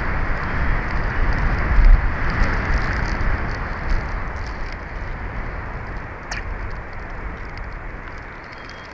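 Wind buffeting an outdoor nest-camera microphone: a rushing noise with a heavy low rumble that gusts and slowly eases off. A single short, sharp sound cuts through about six seconds in.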